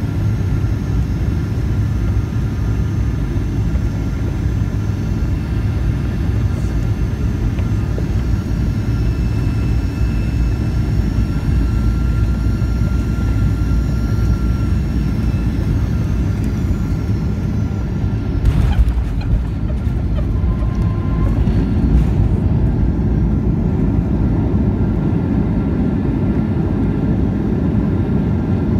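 Cabin noise of a Boeing 737-800 on final approach: a steady rumble of engines and airflow with a faint whine from its CFM56 engines, which falls away a little before touchdown. About two thirds of the way through, the main wheels hit the runway with a thump in a hard landing, and a second, smaller jolt follows a few seconds later as the rollout begins.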